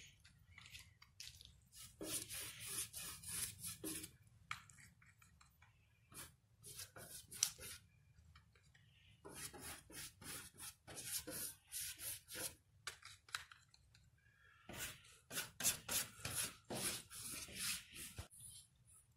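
A hand rubbing and scrubbing paint across a stretched acrylic canvas, in several bursts of quick scratchy strokes with short pauses between.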